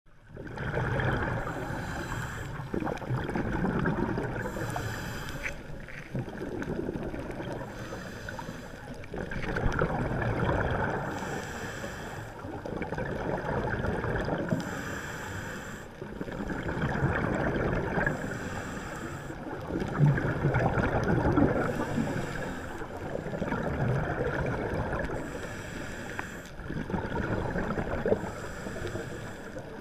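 Scuba breathing through a regulator, heard underwater: a hissing inhale alternates with the bubbling rumble of each exhale, in a slow steady cycle about every three and a half seconds.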